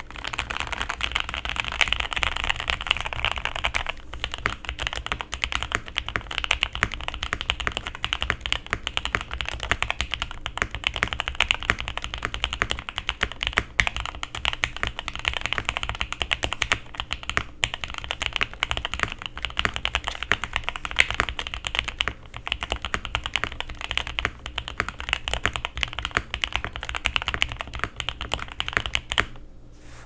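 Fast, continuous typing on a Zuoya GMK67 65% mechanical keyboard fitted with Gateron x EF Curry linear switches and GMK Olive keycaps, the board filled with foam and tape-modded. The typing stops about a second before the end.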